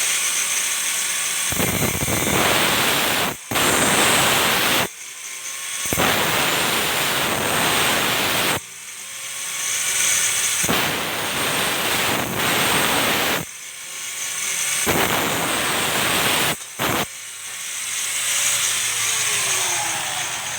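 Angle grinder with a cutting disc cutting iron. Between cuts the disc whines freely, and the sound turns to a harsh grinding each time the disc bites into the metal, over and over with short breaks between passes.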